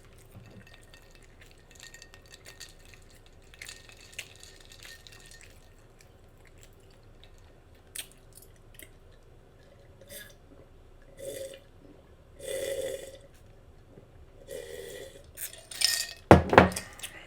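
Close-miked wet mouth sounds of someone eating a bacon cheeseburger: lip smacks, clicks and chewing noises, sparse at first and growing louder and denser in the last few seconds.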